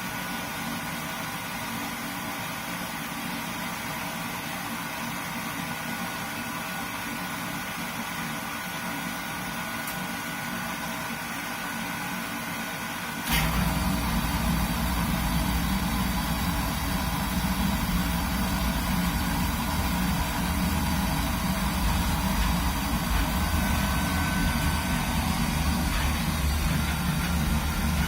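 Oil burner of a Burnham V8H boiler starting up: the burner motor and fan run steadily, then about 13 seconds in the flame lights with a sudden, louder low rumble that carries on. The technician suspects a clogged oil filter, since the flame does not seem constant.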